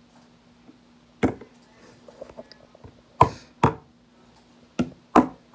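Toy wolf figurine knocked down onto a wooden tabletop as it is walked along, about five sharp knocks: one, then two pairs close together. A faint steady hum underneath.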